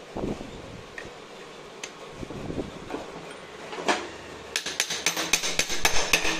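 Metal-on-metal knocks, then a run of quick sharp metallic clicks, about six a second, in the second half, from a Bajaj Pulsar 150 engine's kick-start shaft as it is wound back against its return spring and seated in the crankcase.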